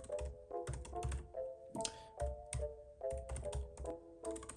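Rapid, uneven keyboard typing clicks over background music with sustained chords and a pulsing bass.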